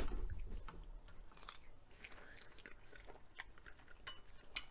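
A person chewing a mouthful of scrambled eggs with ham and bacon: faint, scattered soft clicks and smacks.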